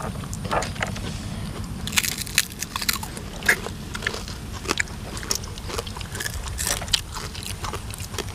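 Close-miked eating of spicy green papaya salad and blood cockles: crisp crunchy bites and chewing, with sharp clicks and crackles scattered throughout, the loudest about 2, 3.5 and 7 seconds in.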